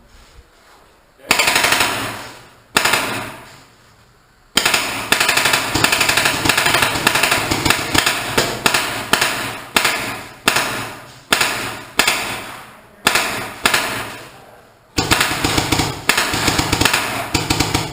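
Paintball markers firing fast strings of shots. There is a short burst about a second in and another near three seconds, then almost unbroken rapid fire from about four and a half seconds on, in strings that each start loud and tail off.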